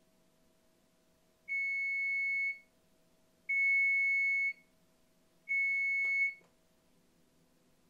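Electric oven's timer alarm going off as the countdown reaches zero: three long, steady, high beeps about two seconds apart. A click from the Timer On/Off button being pressed comes near the end of the third beep.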